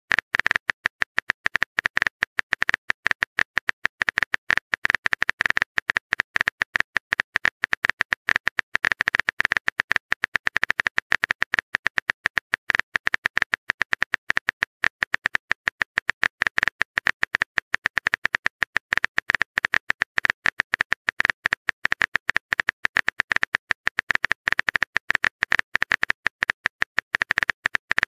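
Typing sound effect: a fast, unbroken run of keyboard clicks, many a second, keeping pace with text being typed into a message box.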